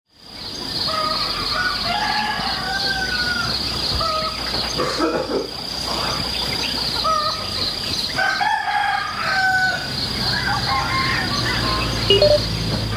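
Roosters crowing again and again, several calls overlapping, over a steady high-pitched pulsing drone; the sound fades in at the start.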